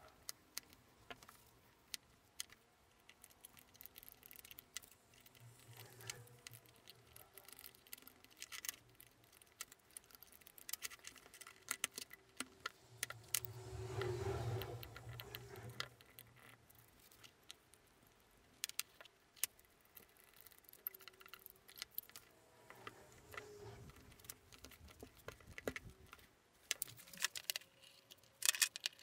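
Scattered light clicks and taps of small parts (handle scales, metal pins, a palette knife) being handled and set down on a wooden workbench while a knife handle is glued up, growing busier near the end.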